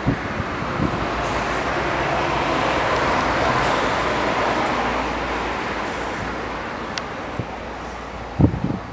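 A vehicle passing out of sight: a rushing noise that builds to a peak a few seconds in and then slowly fades. A few low thumps break through, the loudest near the end.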